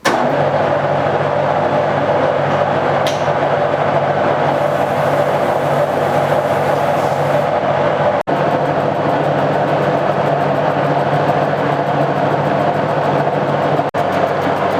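Milling machine face-milling an aluminium cylinder head with WD-40 sprayed on as the cutting lubricant: a loud, steady cutting whir over a low machine hum. It breaks off for an instant twice.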